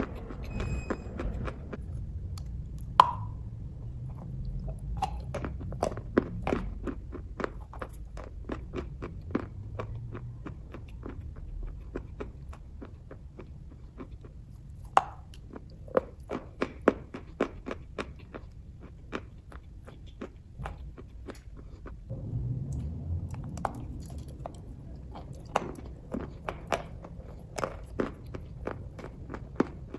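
A person chewing kaju katli, cashew fudge, close to the microphone: a steady run of short mouth clicks and smacks, several a second, with a couple of louder clicks.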